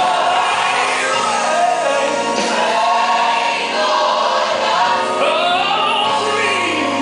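Gospel choir singing a praise song with band accompaniment, the voices holding and bending long sung notes.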